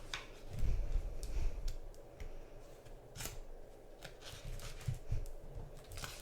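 Paper pages of a picture book being handled and turned: a few short rustles and clicks with a soft low thump about half a second in.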